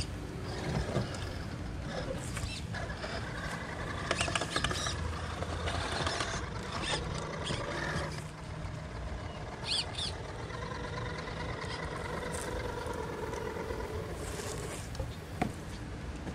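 Redcat Gen8 Scout II RC crawler's brushless electric motor and geared drivetrain whining as it crawls over wooden boards, the pitch changing with the throttle. A few sharp knocks as the tyres and chassis hit the wood.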